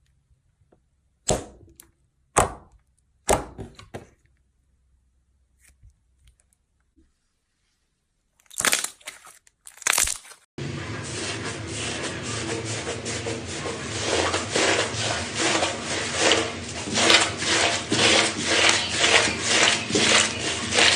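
Slime being worked by hand, making sticky tearing and crackling sounds. The first half has a few separate sharp snaps. About halfway through a steady, dense run of fast crackling and popping begins.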